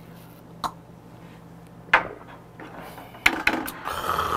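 Tableware knocks: a shot glass and metal chopsticks tapping on plates and the table, with one sharp tap about two seconds in and a quick run of clicks, then a short scraping rustle near the end as food is picked up with the chopsticks. A steady low hum runs underneath.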